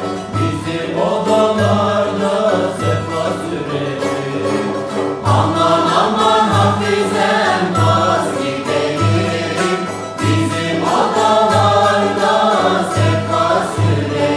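Turkish folk song (türkü) from the Bergama region: a melody over a steady low beat.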